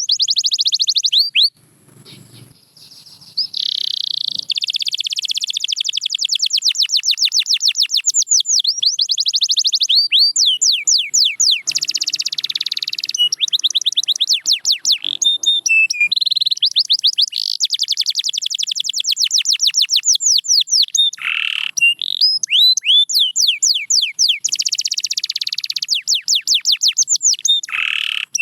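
Domestic canary singing: long, rapid trills of repeated sweeping notes, with a short break about two seconds in before the song resumes.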